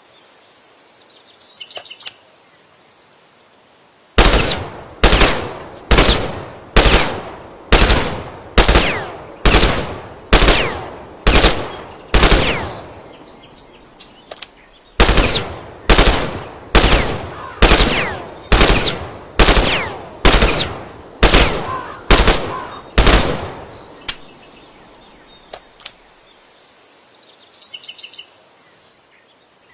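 M16 rifle firing single shots at an even pace of about one a second, in two strings of ten separated by a pause of about two seconds. Each shot is a sharp crack followed by a fading echo tail.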